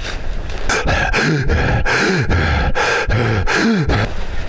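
A person breathing hard and fast with short grunts, about two to three breaths a second, while digging through snow by hand to reach a buried person.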